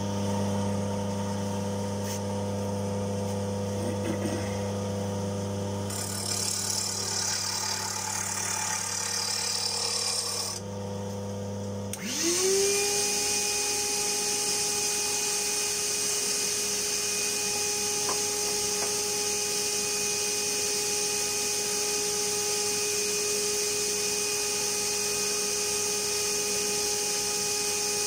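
JET wood lathe with a steady low electrical hum, then about twelve seconds in its motor spins up in a rising whine and settles into steady running.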